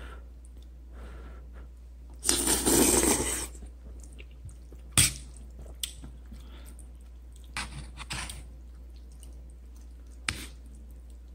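A mouthful of instant noodles slurped loudly for about a second, then quieter chewing, with a couple of sharp clicks of a metal fork against the metal pot.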